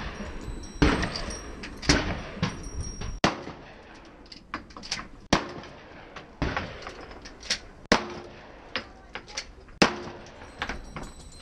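A string of gunshots from a cowboy action shooting stage run, about ten sharp reports fired one at a time, roughly a second or two apart. Fainter knocks and clicks fall between them.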